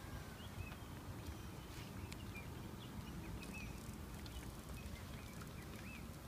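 Small birds chirping in short scattered calls over a steady low rumble, with a few light clicks.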